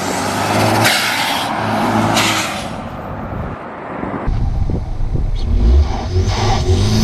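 Modified turbocharged 1.6 Kia Cerato engine revving, with two sharp hisses from its blow-off (dump) valve venting boost as the throttle closes, in the first few seconds. About four seconds in the sound changes abruptly to a deeper, louder engine and exhaust note pulling under acceleration.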